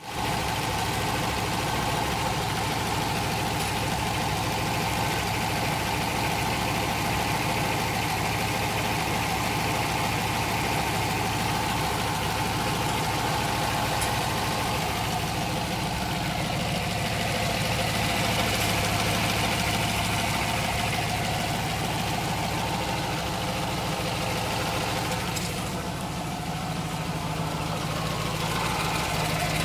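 Engine idling steadily, with a rapid knocking running through it.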